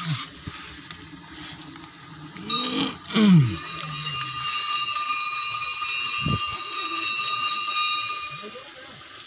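A metal bell ringing, its tones holding for several seconds from about two and a half seconds in and then fading. A short cry falling in pitch sounds near the start of the ringing.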